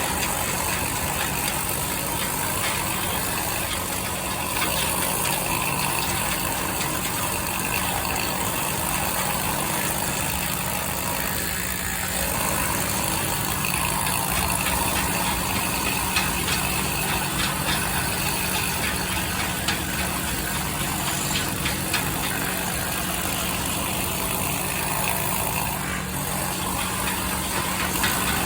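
An engine running steadily at idle, a constant hum with faint scattered ticks over it.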